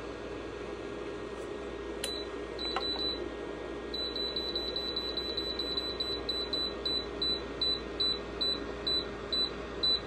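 Ceramic space heater's touch control panel beeping as the temperature setting is tapped up. A few beeps come first, then a fast run of beeps, then single beeps about two or three a second. Under them runs the steady hum of the heater's fan.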